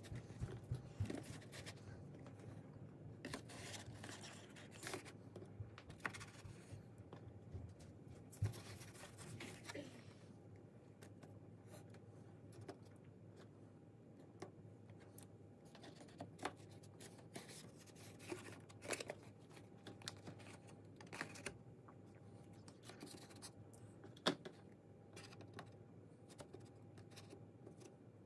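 Faint, scattered taps and light scrapes of iced sugar cookies being set down in a cardboard box and lifted from a plastic container, over a faint steady hum.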